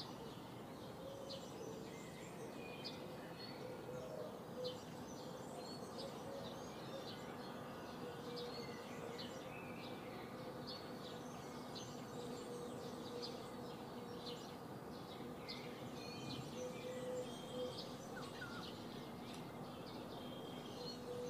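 Small birds chirping and calling over and over, with a steady faint background hum.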